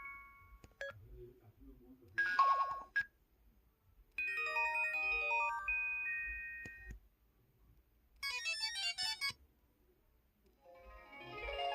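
KTF-E3300 mobile phone's built-in electronic alert tones: four short synthesized melodies played one after another with brief pauses between, the third a fast run of high notes.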